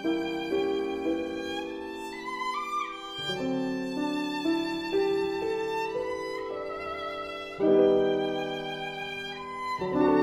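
Violin playing a slow melody of long bowed notes with vibrato. A loud new note enters about three-quarters of the way through.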